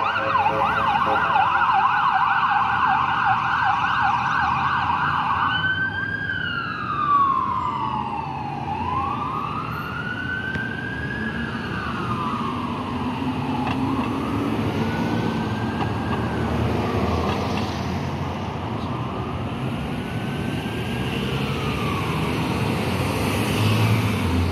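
Emergency vehicle's electronic siren, first a fast yelp, then switching abruptly about six seconds in to a slow wail that rises and falls every two to three seconds, over passing traffic noise.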